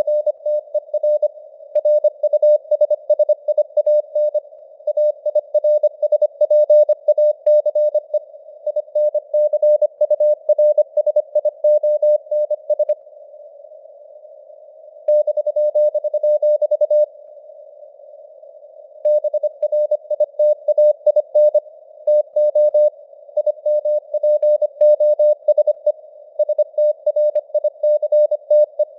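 Morse code (CW) sent at 25 words per minute as a single tone of about 600 Hz, keyed in short and long elements over a narrow band of simulated radio hiss and spelling out news headlines. The keying stops for a couple of seconds twice near the middle.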